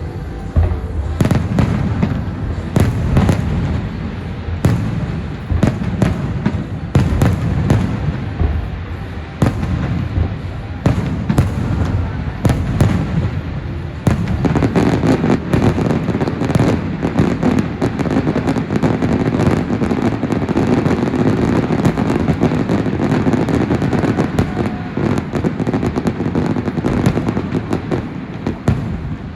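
Aerial fireworks bursting in quick succession, sharp bangs and booms overlapping. About halfway through the bursts thicken into a steady, dense wash of noise, with a musical soundtrack faintly underneath.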